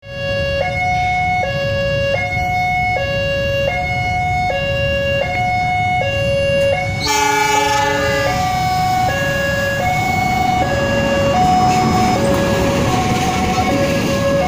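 An electronic two-tone warning alarm alternating high and low about every three-quarters of a second, while a passenger train approaches. About halfway through, the train's locomotive horn sounds for about a second, and then the rumble of the train grows louder as the coaches pass.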